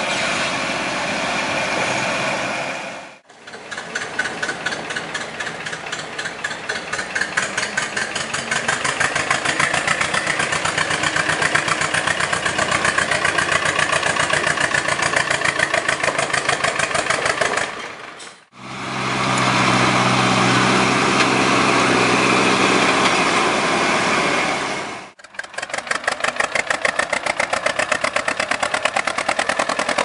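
Tractor engines in several back-to-back clips: a steady engine note for the first three seconds, then an old tractor engine with distinct firing pulses that quicken and grow louder, a steadier, deeper engine note from about eighteen seconds, and another pulsing engine near the end.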